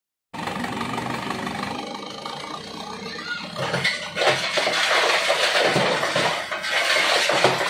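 Dump truck engine running as the loaded bed tips up; from about four seconds in, soil and rocks slide out of the bed and tumble onto the pile with a loud, rushing, clattering noise.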